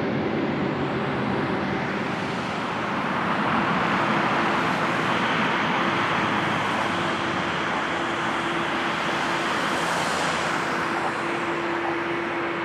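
Jet airliner engines at takeoff thrust: a steady roar that swells over several seconds, with a hissing high edge that peaks and falls away about ten seconds in, and a steady low hum underneath.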